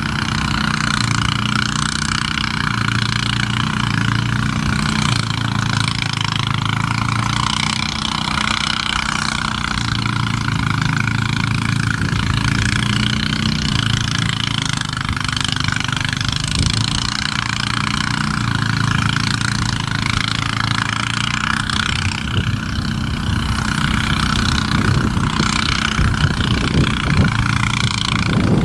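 Diesel locomotive engine running steadily as a passenger train approaches on the track, growing slightly louder and rougher near the end as the train draws close.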